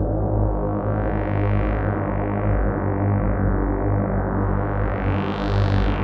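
Dreadbox Nymphes six-voice analog synthesizer holding a sustained chord over a steady low bass. Its filter sweeps slowly open and shut, brightening about a second and a half in and again, higher, near the end. It is played through an Eventide Rose analog delay pedal.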